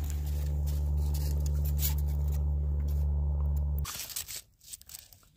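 A steady low hum that cuts off suddenly about four seconds in, followed by a few faint scattered clicks and crunches.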